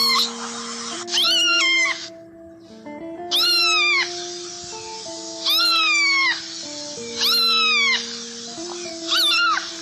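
A domestic cat meowing again and again, about every two seconds, each meow long and falling in pitch, over background music of sustained notes.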